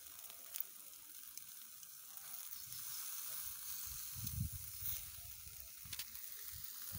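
T-bone steak sizzling on a wire grill over a charcoal fire: a faint steady hiss with a few sharp pops of fat.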